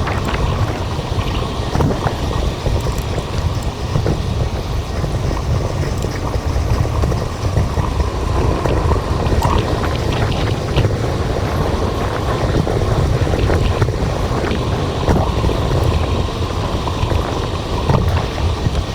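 Wind buffeting a GoPro Hero 5's microphone on a moving bicycle: a steady low rumble with road noise and a few faint clicks.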